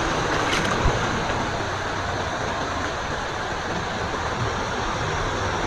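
Steady rush of a shallow river flowing over rocks, with a couple of small splashes in the first second.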